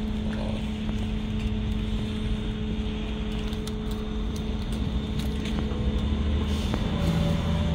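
A steady low hum with a constant tone, with light scattered crackles from a wood and pellet fire burning in a camping stove.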